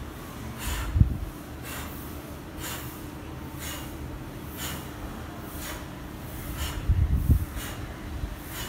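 A man's sharp breaths blown out, about one a second, in time with a side-bending warm-up exercise, exhaling on each movement. A couple of low thumps, about a second in and near the end.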